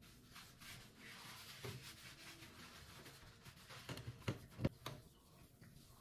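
Sponge and cloth rubbing and wiping cleaning foam off a glass gas hob, a faint scrubbing sound. A few light knocks come between about four and five seconds in.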